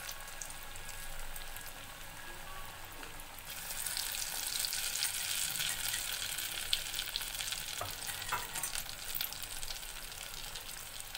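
Masala-coated taro pieces deep-frying in hot oil in a steel kadai: steady sizzling and crackling, which grows louder about three and a half seconds in.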